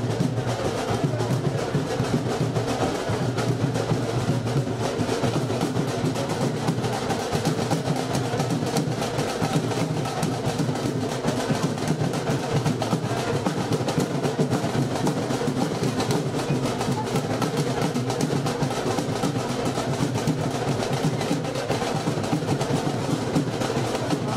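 Dhol drum beaten in a fast, steady rhythm that runs on without a break.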